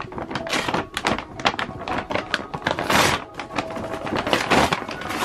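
Crinkling and crackling of a glossy brown paper shipping bag being handled and pulled at by hand to open it: a dense, irregular run of sharp crackles and rustles.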